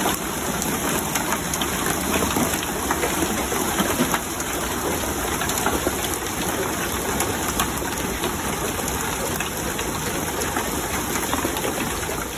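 Hail falling and pelting hard surfaces: a steady dense clatter of countless small impacts.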